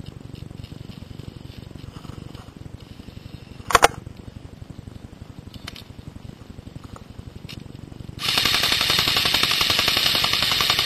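Airsoft electric rifle, a CYMA AK74, firing one long full-auto burst of about three seconds near the end, an even rapid rattle. About four seconds in there is a single short, sharp crack.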